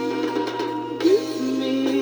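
A pop song recording playing: a singing voice over sustained instrumental accompaniment, with a short rising vocal glide about a second in.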